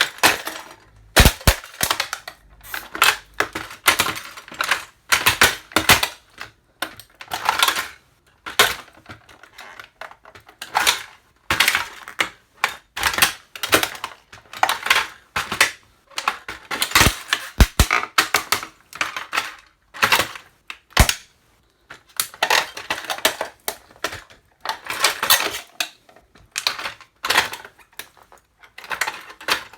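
Toy truck being crushed under boots: bursts of cracking and crunching, again and again, with a few sharp single snaps as parts break.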